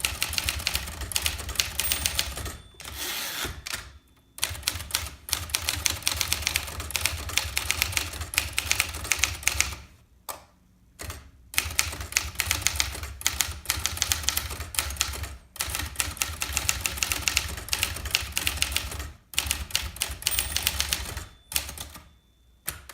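Remington Quiet-riter manual portable typewriter being typed on: fast runs of key strikes broken by a few short pauses.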